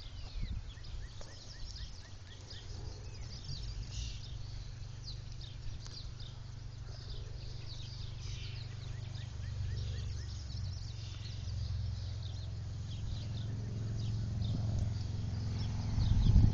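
Birds chirping over a steady low rumble that grows louder near the end.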